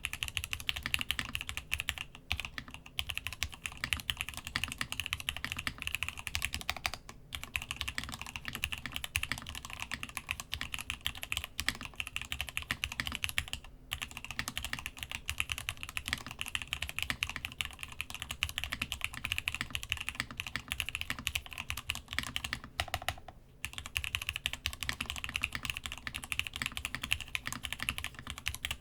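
Continuous fast typing on a Masjewerke Muramasa mechanical keyboard with lubed, spring-swapped Gateron X linear switches and DCD Gondor keycaps: a dense stream of keystrokes with a few brief pauses.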